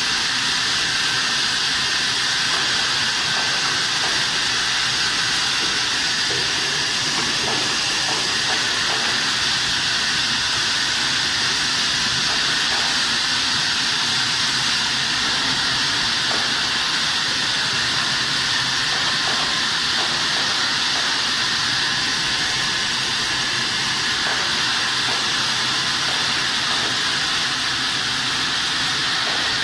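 Steady, even hiss of running workshop machinery with a faint low hum beneath, unchanging throughout.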